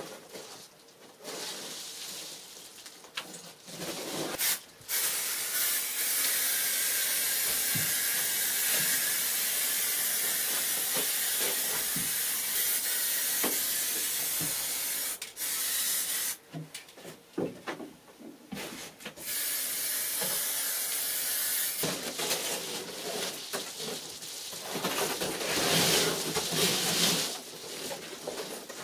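Aerosol can of spray adhesive hissing in long steady spells, the longest about ten seconds, with a short break past the middle.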